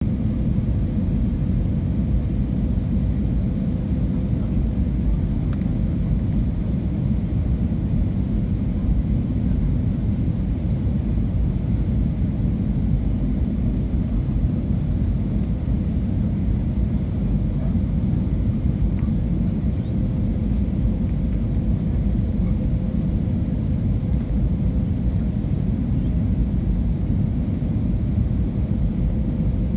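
Steady low cabin rumble inside an Airbus A320neo descending on final approach with flaps out, with a faint steady hum running underneath.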